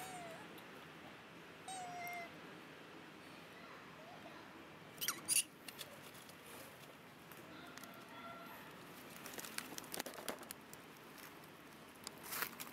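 Macaque monkeys giving brief, squeaky, meow-like calls, one at the very start and another about two seconds in. A few sharp clicks and knocks come in between, the loudest about five seconds in.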